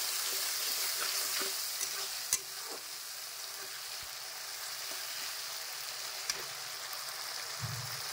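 Ground spice paste, with onions and green chillies, sizzling steadily in hot oil in a pan as it is stirred and fried down (bhuna) for a mutton curry. A couple of sharp clicks come from the utensil against the pan.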